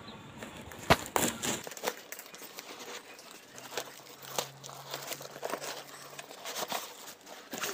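Paper and cardboard parcel wrapping, bound with packing tape, being torn open and crumpled by hand. It makes irregular crackles and rips, with a sharp crack about a second in.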